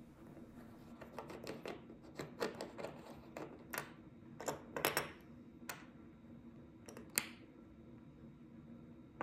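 Irregular sharp metallic clicks and taps, about a dozen, as a metal watch case opener works a screw-down watch caseback loose and the tool and caseback are handled. The loudest click comes about seven seconds in.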